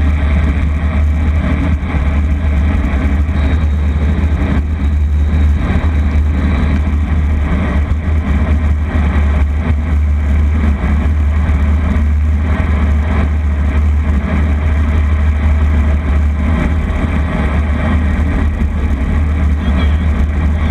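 Vehicle under way on the road: steady engine and road noise over a heavy low rumble.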